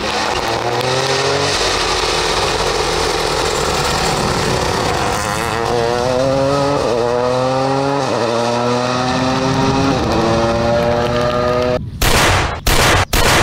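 Rally car engine accelerating hard through the gears: the engine note climbs, drops back at each upshift and climbs again, about three times. Near the end come a few short, very loud bursts of rushing noise.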